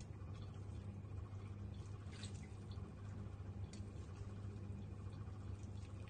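Water dripping and trickling as choy sum is lifted with chopsticks out of a wok of water into a stainless steel colander, with a few light clicks, over a steady low hum.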